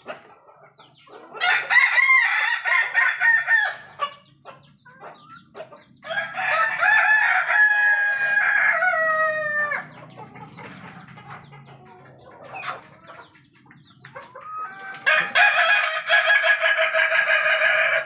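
Roosters crowing: three long crows, each a few seconds, the second ending in a series of falling notes and the last running into the end.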